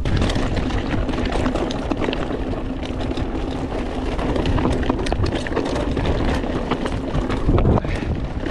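Mountain bike descending a rough dirt trail at speed: the tyres roll and scrub over the ground, the bike clacks and rattles over bumps again and again, and a steady hum runs underneath.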